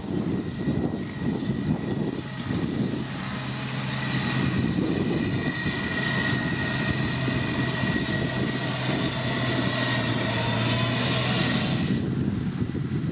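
Heavy road-construction machinery running: a steady diesel engine drone with a high-pitched whine over it that stops near the end.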